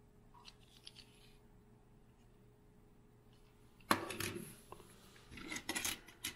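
Near-quiet room for the first four seconds, then a sharp click and rustling, clicking handling noise as a small die-cast toy car is set down and another is picked up from the pile.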